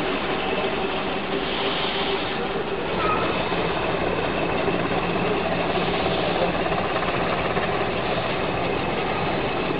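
A vehicle engine idling close by, a loud steady drone with a constant hum, unchanging throughout.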